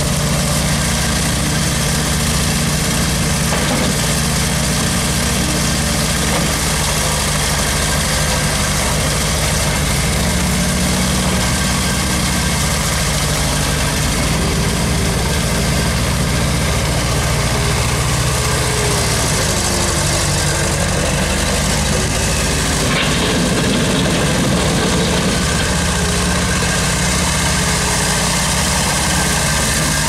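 2005 New Holland LS190.B skid steer loader's diesel engine running steadily as the machine drives along, its pitch dipping and recovering a few times.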